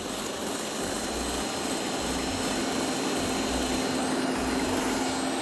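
Electric stand mixer running with its wire whisk, beating flour into a butter, oil and sugar dough: a steady motor whir. A low steady hum comes in about two seconds in.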